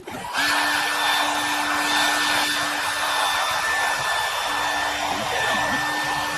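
A heat gun switching on about half a second in and then blowing steadily, a loud airy hiss with a steady whine, used to heat and soften the adhesive holding a hood scoop.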